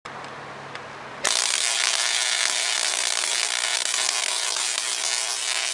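Tesla coil discharging: a loud, steady crackling buzz that comes on abruptly about a second in, after a fainter low hum.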